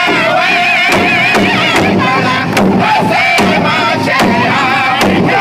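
Powwow drum group singing a men's traditional song in high, wavering voices together, over steady unison strikes of padded sticks on a large hide-covered powwow drum.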